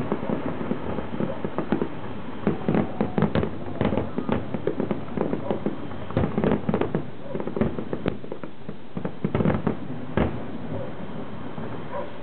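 Aerial fireworks shells bursting in a rapid, irregular string of bangs that thins out, ending with a last single bang about ten seconds in.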